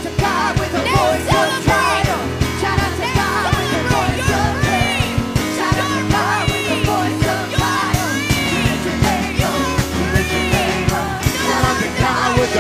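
Live worship band playing, with a drum kit keeping a steady beat under several voices singing and calling out.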